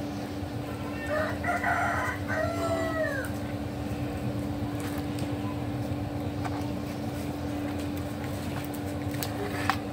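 A rooster crows once, starting about a second in and lasting around two seconds, its pitch falling at the end. A steady low hum runs underneath, and a sharp click comes near the end.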